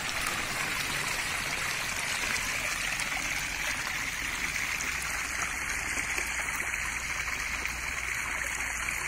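Water flowing steadily along a narrow concrete irrigation channel, an even rushing trickle.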